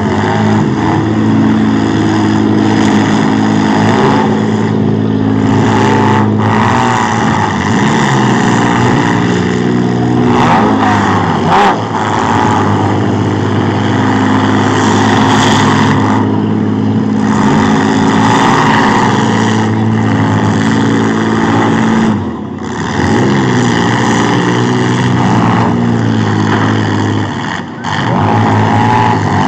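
Several demolition-derby trucks and SUVs running and revving hard together, a loud steady engine drone whose pitch rises and falls as they are driven. A short sharp bang about twelve seconds in.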